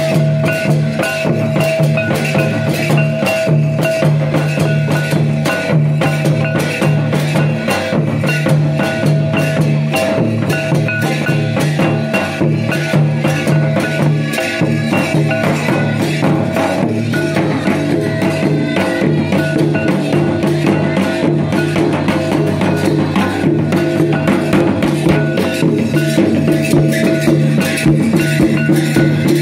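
Folk drums, barrel hand drums among them, beaten in a fast, even rhythm to accompany a tribal dance. Held tones run under the drumming.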